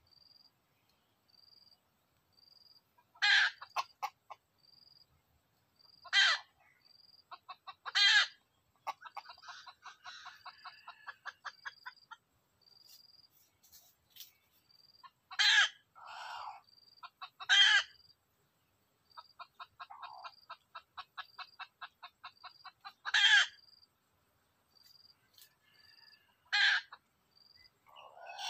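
Red junglefowl calling: seven short, sharp calls spread through, and two runs of rapid clucking, about ten a second, each lasting a few seconds. A faint high chirp repeats about once a second throughout.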